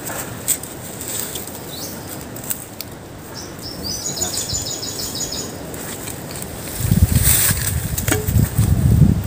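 Bare hands scratching and scooping dry soil out of a burrow hole, with small scrapes and clicks of earth. A bird gives a quick, high trill of rapidly repeated notes about three seconds in. From about seven seconds a loud low rumble sets in and covers the rest.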